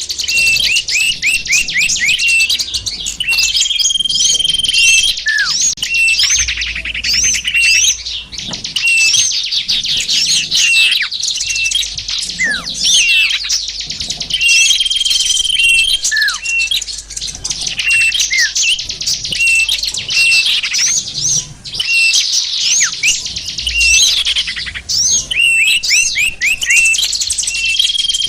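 A bird-lure (pikat) recording of small songbirds calling: a dense run of rapid chirps and trills, with a held high whistle and short falling whistles. The same sequence of calls recurs about every eleven seconds, as in a looped lure track.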